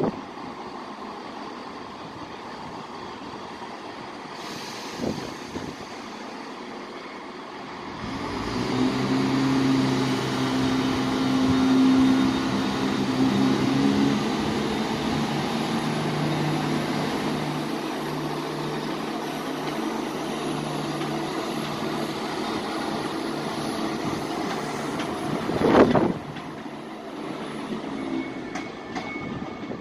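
A train at a station platform: its steady low hum with several tones sets in about eight seconds in and eases after about fourteen seconds, over station background noise. A loud short thump comes near the end.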